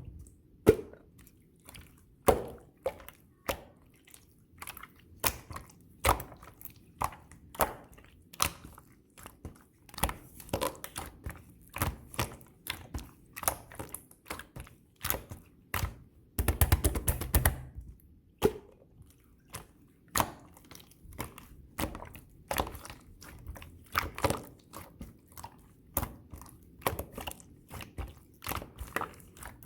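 Hands squeezing and pressing pearl slime, making irregular sticky clicks and pops, with a denser run of squishing about two-thirds of the way through.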